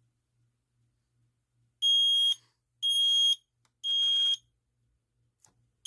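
Smoke alarm sounding in its temporal-three pattern: three loud, high-pitched beeps, each about half a second long and about a second apart, starting about two seconds in and followed by a pause. It has been set off by canned test smoke.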